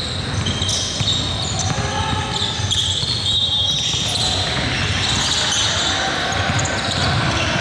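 Basketball bouncing on a gym court during a game, with scattered short high squeaks and voices in the echoing hall.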